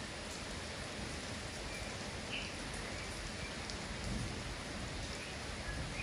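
Steady hiss of rain falling, with a few faint short chirps from a bird.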